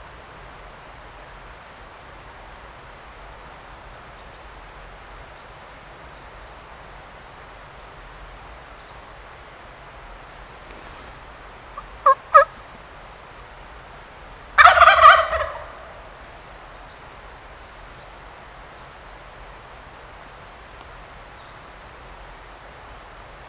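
Wild turkey tom gobbling once, loudly, for about a second, midway through. A few seconds before it come two short, sharp calls, and a small songbird twitters faintly and high at the start and the end.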